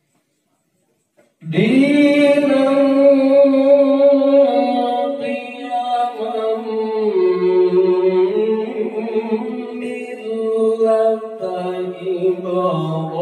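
A qori's solo voice reciting the Qur'an in melodic tilawah style through a microphone, starting about a second and a half in and holding long, slowly shifting notes.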